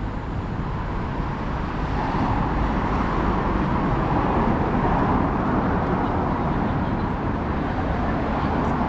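Road traffic on a rain-wet city street, a steady rush of engines and tyres that grows louder about two seconds in.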